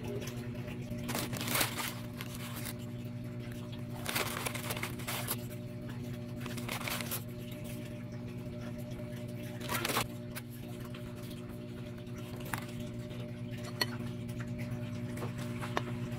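Soft handling noises of food assembly: a few brief rustles and squishes as mango slices, graham crackers and condensed cream are laid into a plastic tub, with small clicks between them, over a steady low hum.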